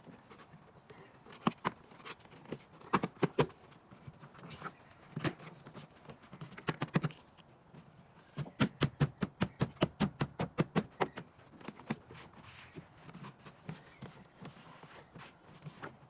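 Hands handling and fitting plastic parts: scattered sharp clicks and knocks, with a quick regular run of about six clicks a second for a couple of seconds in the middle.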